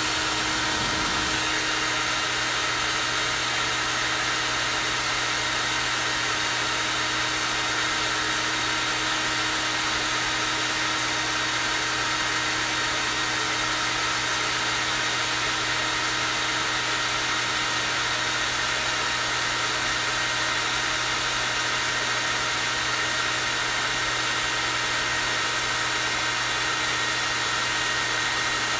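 Hair dryer running steadily on its high-airflow setting: an even rush of air with a steady motor hum and a high whine.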